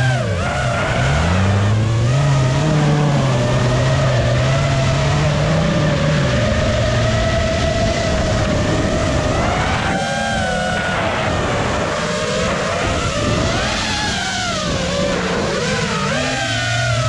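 Autocross race car engines running hard, the note repeatedly climbing and dropping as the cars rev and shift gears around the track.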